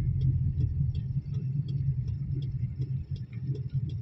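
Hyundai i10 hatchback running on the road, a steady low engine and road rumble heard from inside the cabin, with a light, even ticking about two or three times a second.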